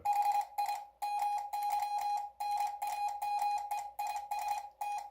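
Morse code sent on a ham radio station: a single steady beep tone keyed rapidly in dots and dashes, at what the operator reckons might be 25 words a minute. It spells out "hi, my name is Tom".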